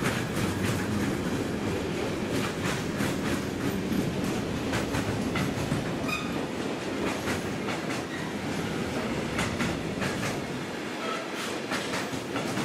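Freight train of empty stake flat wagons rolling past close by: a steady rumble of steel wheels on rail with irregular clicks and clacks as the wheelsets pass over the track.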